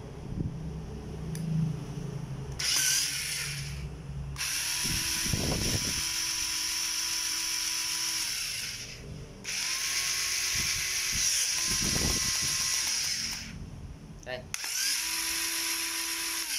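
Small electric motor of a power tool switched on and off in four runs of a few seconds each, starting about three seconds in, each run starting and stopping abruptly.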